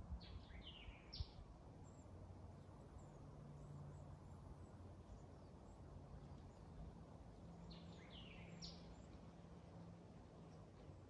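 Faint outdoor ambience with a bird calling in two short spells of quick descending chirps, near the start and again about eight seconds in, over a low steady hum.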